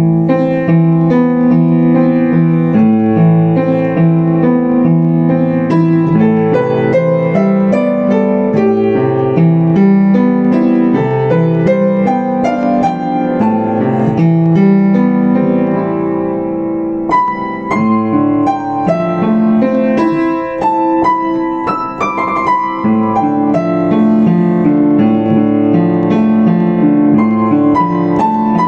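Yamaha U5 upright piano played solo: a flowing line of chords in the low and middle range, with brighter high notes coming in a little past the halfway point.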